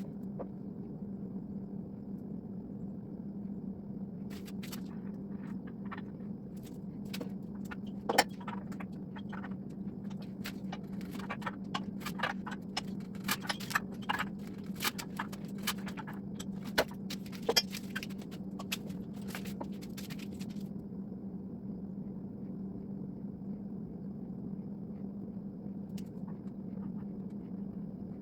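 A run of sharp metallic clicks and clinks from hand tools working threaded metal gas pipe and fittings, thickest in the middle, over a steady low hum.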